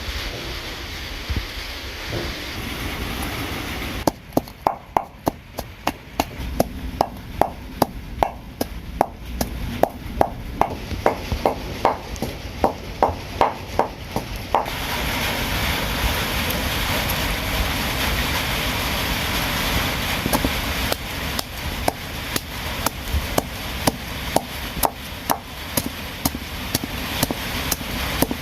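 Knife chopping on a wooden board, sharp strokes at about two a second, starting about four seconds in and running on over a steady hiss.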